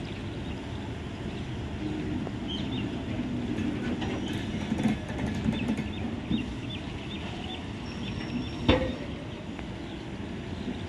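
Express train coaches rolling slowly along the track, a steady low rumble with faint short high squeaks, and a single loud clank near the end.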